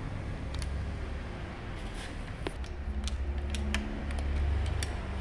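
Light metal clicks and taps of tools and parts against a Bosch diesel injection pump being taken apart, scattered from about two seconds in, over a steady low hum.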